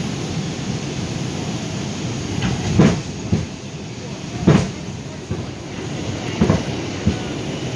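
R142 subway car running in the tunnel, heard from inside the car: a steady rumble, with about five sharp wheel clacks over the rail joints. The loudest clack comes about four and a half seconds in.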